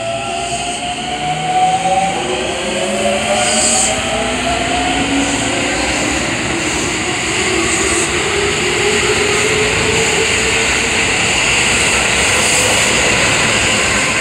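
Keisei 3700-series electric train pulling out and accelerating past, its traction motors whining in several tones that rise in pitch over the first half, over steadily building wheel and rail rushing noise.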